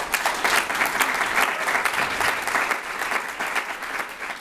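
Audience applauding, a dense patter of many hands clapping that begins to thin out and fade in the last second or two.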